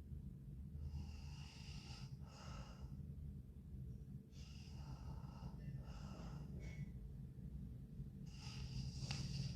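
A sleeping woman snoring and breathing heavily, each breath in and out followed by a short pause, over a steady low hum.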